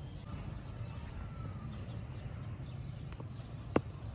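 Low wind rumble on the microphone with faint bird chirps, and one sharp knock near the end: a plastic cricket bat striking a ball.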